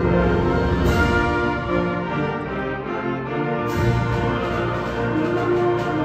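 School concert band playing, with brass and woodwinds holding sustained chords.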